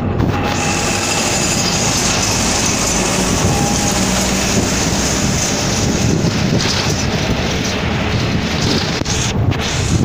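Steady, loud engine and road noise from inside a moving local bus, with traffic passing close outside the window.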